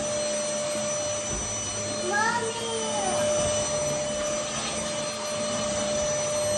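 MBYULO 450 W cordless stick vacuum running steadily, its motor giving an even rushing hum with a constant whine. A voice is heard briefly about two seconds in.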